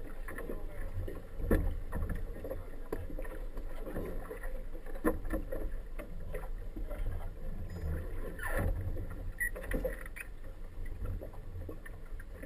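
Inflatable boat coming slowly alongside a marina dock: a steady low rumble with scattered knocks and clunks, the sharpest about a second and a half in.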